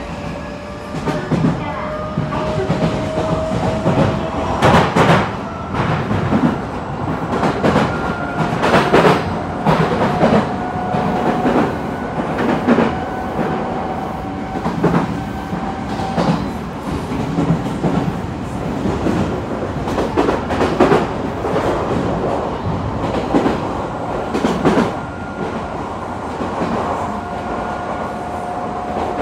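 Odakyu 3000 series electric train heard from inside the passenger car while running and picking up speed. Its motor whine rises slowly in pitch in several steps over a steady rumble, and the wheels clack over rail joints every second or two.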